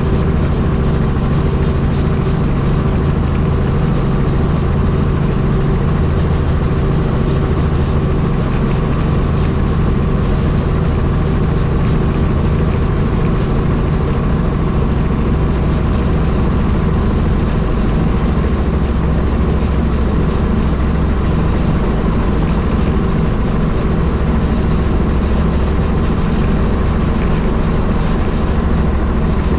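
Helicopter in flight, heard from on board: the steady drone of its turbine engine and rotor blades at constant power, with unchanging hum tones.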